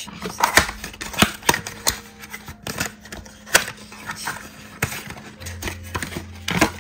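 Cardboard gift boxes being handled and opened: irregular taps, knocks and scrapes of thin card.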